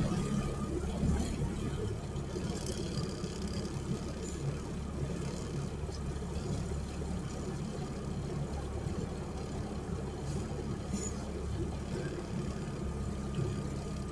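Small outboard motor running steadily, pushing an inflatable boat along at speed: a continuous low drone over a haze of wind and water noise.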